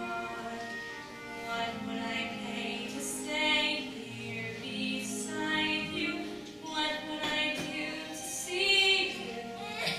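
A young female voice singing a slow song with musical accompaniment, on long held notes that glide between pitches.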